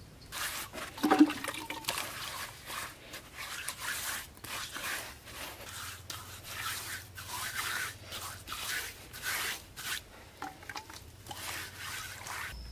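A bare hand rubbing and smoothing wet mud over a carved earthen wall relief, in repeated wet strokes about one every half second. The loudest stroke comes about a second in.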